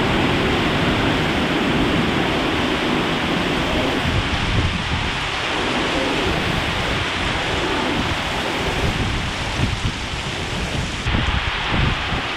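Heavy hurricane rain pouring down in a steady hiss, over a low, surging rumble of surf and wind.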